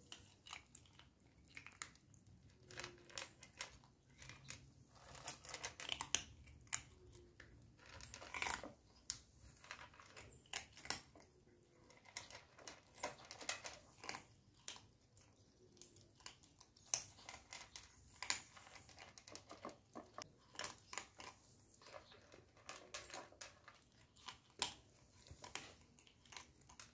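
Two kittens eating dry cat kibble, a faint, irregular run of small crisp crunches and clicks as they chew.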